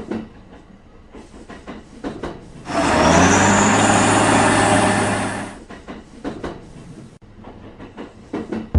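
A train passing: a loud rush of noise over a steady low hum, lasting about three seconds and beginning about three seconds in, with faint clicks before and after it.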